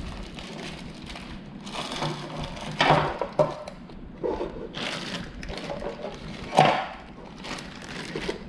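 Hard plastic LEGO Technic pieces clattering and clicking as they are handled and pushed together, with a few sharper knocks, the loudest about two-thirds of the way through.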